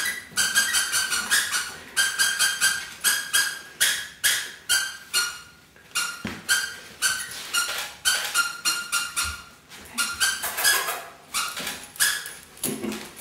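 A Rottweiler walking about on a ceramic tile floor: its claws click on the tiles and its collar jingles in step. The ringing clicks come several a second, in runs with short pauses.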